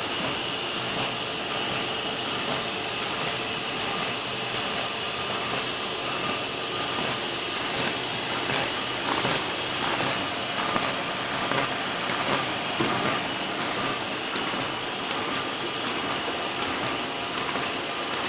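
Stahl KC 66 paper folding machine running: a steady mechanical whir with a constant high tone, and faint rapid clicking through the middle as sheets feed through.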